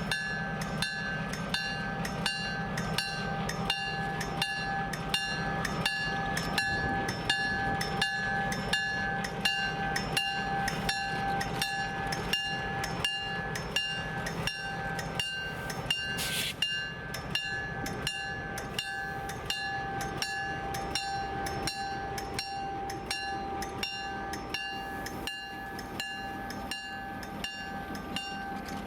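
EMD GP7 diesel locomotive with a 567B engine running, with a sharp metallic strike repeating steadily about twice a second.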